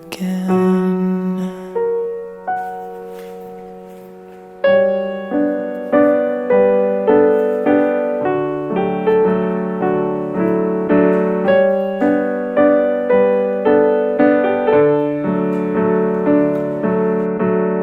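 Background piano music: a few held notes die away, then about four and a half seconds in a steady, evenly paced pattern of notes begins.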